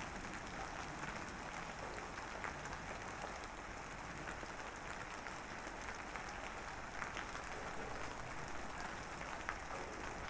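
Steady rain, an even wash of noise dotted with many small scattered drop ticks.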